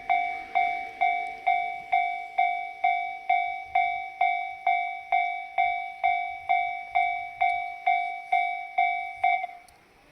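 Japanese railway level-crossing alarm ringing its 'kan-kan' warning, an even two strikes a second, which stops about nine and a half seconds in.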